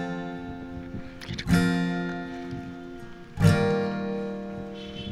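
Background music: strummed acoustic guitar chords, a new chord struck about every two seconds and left to ring out.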